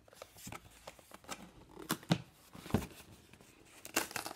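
A small cardboard box being handled and its end flap pulled open: scattered short scrapes and taps of cardboard, the sharpest about two seconds in and near the end.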